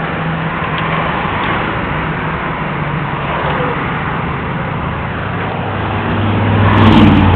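Steady highway traffic noise from passing vehicles. Near the end one vehicle passes close, its engine swelling up and then fading.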